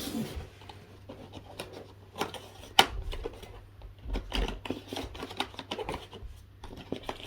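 Cardboard packaging being handled and opened: a run of small clicks, taps and rustles, with one sharp snap a little before three seconds in.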